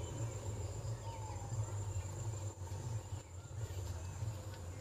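Insects chirring in one steady, high-pitched note, over a low fluttering rumble.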